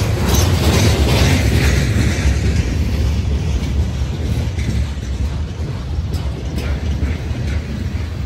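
Freight train of flatcars loaded with steel coils rolling past close by: a steady low rumble of wheels on rail, with sharp clicks of wheels over rail joints near the start and a few more later on.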